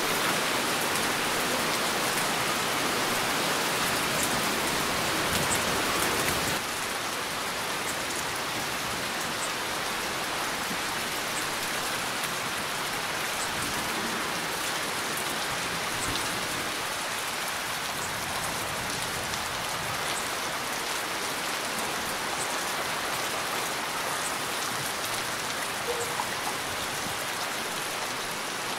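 Heavy rain falling steadily, an even hiss of drops on surfaces. About six and a half seconds in it abruptly turns a little quieter and stays that way.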